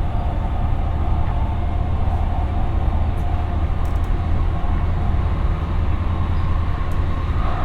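Siemens P2000 light-rail car running steadily at speed, heard from inside the car: a constant deep rumble of wheels on rails, with a faint steady whine above it.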